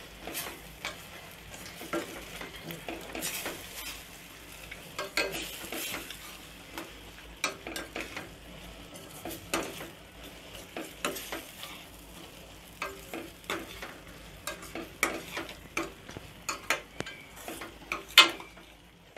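Metal spoon stirring and scraping a thick tomato, onion and chilli-powder masala in a stainless steel pan as it fries with a light sizzle, the spice powder being sautéed into the mixture. Repeated short scrapes and clinks of the spoon on the pan, with one sharper knock near the end.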